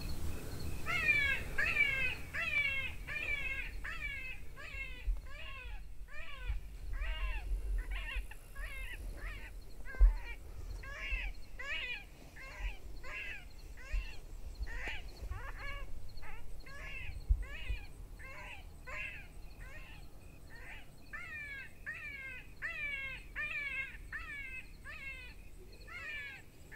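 Crows cawing in a long, steady run of short caws that fall in pitch, about two a second, over a low rumble, with one sharp thump about ten seconds in.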